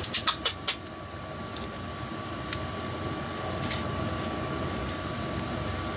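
Hot frying oil crackling and popping in a quick run of sharp pops, then a few scattered ones, after frying black sea bream pieces. Underneath is a steady hum with a faint high whine.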